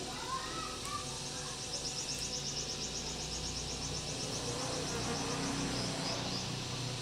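Insect trilling: a high, rapid pulsed trill of about eight pulses a second that lasts about three seconds, over a steady low hum.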